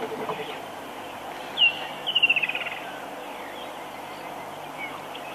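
A wild bird calling: one sharp note sliding down in pitch, then about half a second later a fast run of about ten notes that step downward. A few fainter calls follow near the end.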